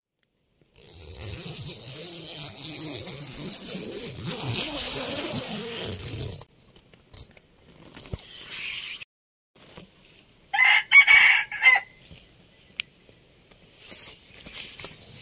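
A rooster crows once, loudly, about ten seconds in. Before the crow there are a few seconds of mixed farmyard noise that cut off suddenly.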